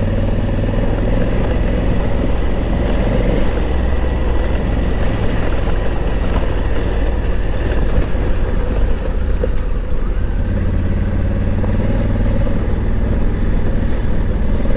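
Honda Africa Twin motorcycle running at a steady cruising speed, its engine drone mixed with wind and road noise.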